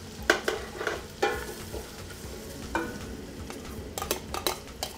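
Pork ribs frying in melting butter in a stainless steel pot, sizzling steadily, while a metal utensil stirs them with repeated clinks and short squeaky scrapes against the pot.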